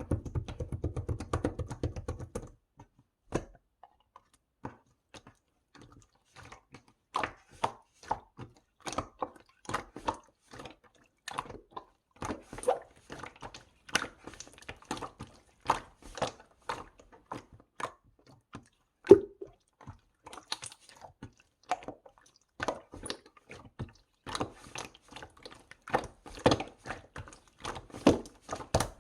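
Slime being pressed and squeezed by hand, giving irregular sticky clicks and small pops, roughly two or three a second, after a denser run of sound in the first couple of seconds.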